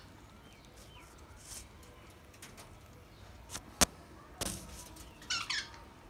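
Budgerigars chirping sparsely, with a quick run of chirps about five seconds in. A sharp click a little under four seconds in and a short rustle just after stand out above the chirps.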